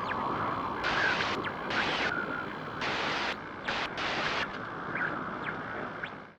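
Outdoor ambience: a steady rushing noise, with short chirping calls from small birds and several brief hissing bursts in the first half.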